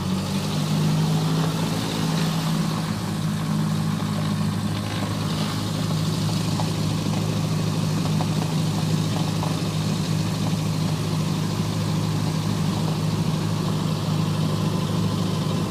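Cessna Skyhawk's single piston engine and propeller at takeoff power, a steady drone heard from inside the cabin.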